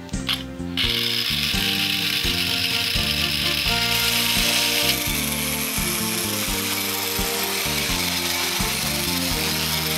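Electric motor and gearing of a battery-powered Masudaya tin toy train running, a steady whirring buzz with a mechanical rattle that starts about a second in, over background music.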